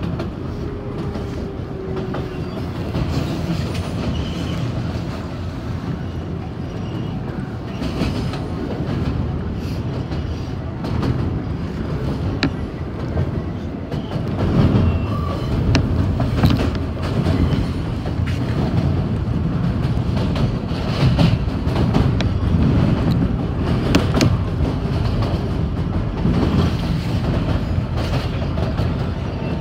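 New York City Subway 7 train (R188 cars) running along the elevated line, heard from inside the car: a steady rumble of wheels on rail with clicks over the rail joints. It grows louder about halfway through.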